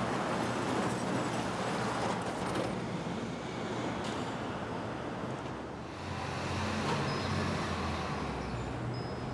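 City street traffic: a steady wash of passing cars, with the low engine hum of a heavy vehicle growing stronger about six seconds in.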